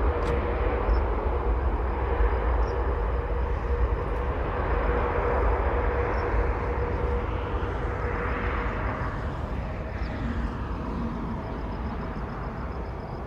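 Airbus Beluga XL's Rolls-Royce Trent 700 jet engines running after landing, a steady jet noise that slowly fades, with a brief swell about two thirds of the way through.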